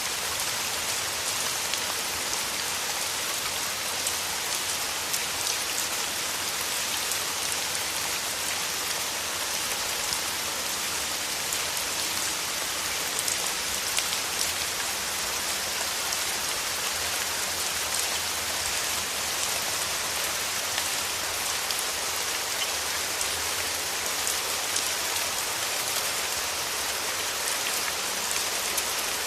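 Steady, heavy rain falling: a constant hiss flecked with many small, sharp drop ticks.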